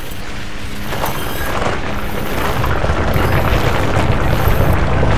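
Sound effect of a masonry wall crumbling and collapsing: a dense crackle of breaking and tumbling rubble over a deep rumble that builds steadily louder, heaviest in the second half.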